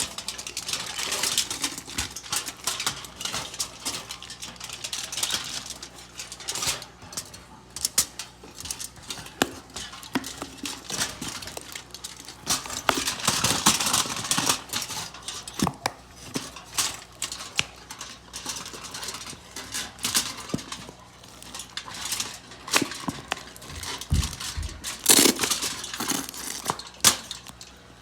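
Utensils and dishes clinking, scraping and knocking irregularly while food is handled, with a run of louder knocks near the end.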